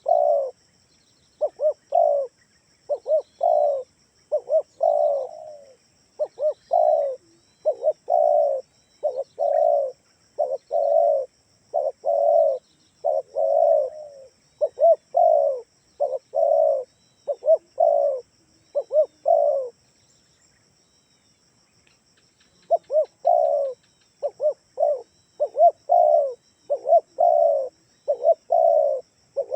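Spotted dove (tekukur) cooing: repeated short coos in phrases, with a pause of about three seconds about two-thirds of the way through before the calling resumes.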